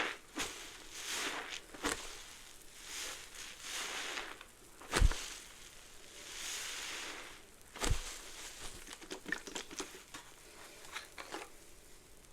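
Soapy sponge loaded with citrus Fabuloso cleaner and Mr. Bubble bath soap being squeezed over and over, the suds crackling with each squeeze. Two sharp thumps stand out, the loudest about five seconds in and another near eight seconds, and the squeezes grow fainter near the end.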